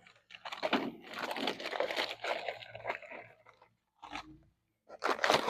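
A parts package being opened and rummaged through: plastic or paper rustling and crinkling for about three seconds, with another short burst of crinkling near the end.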